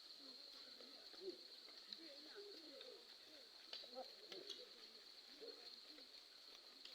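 Faint cooing of doves, soft low warbling calls scattered through, over a steady thin high-pitched whine.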